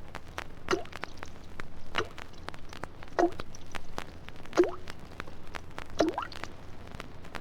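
Single water droplets dripping one at a time at a slow, even pace, about one every 1.3 seconds, each a short plink that rises in pitch: the water-torture drip.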